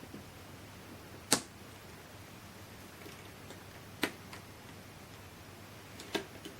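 Motherboard CPU socket being opened: sharp clicks as the retention lever is unlatched and the load plate lifted. Three distinct clicks, about a second in, about four seconds in and near the end, the first the loudest, with a few fainter ticks between.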